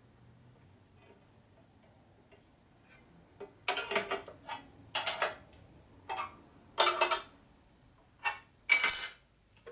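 Steel parts and setup pieces being handled on a machine table: a run of short metallic clanks and clinks, the last and loudest one ringing brightly near the end.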